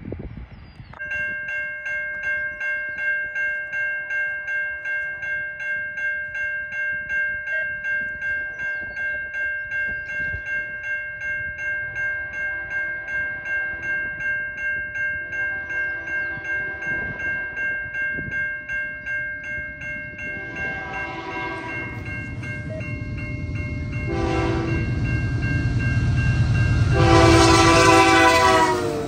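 Grade-crossing bell ringing in steady rapid strikes as a freight train approaches. About twenty seconds in, the lead locomotive's Nathan K3L air horn, on a CN AC44C6M rebuilt Dash 9, sounds a long blast, a short one, then a long, loudest blast that drops slightly in pitch as the locomotive reaches the crossing, over a growing engine and wheel rumble.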